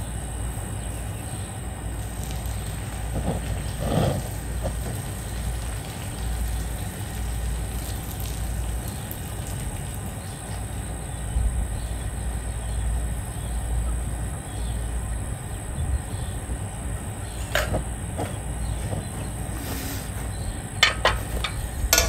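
Steady low rumble, with a brief splash about four seconds in as the cooking water is strained out of a steel pot, and a few sharp metal clicks near the end as the pot is set back on the burner.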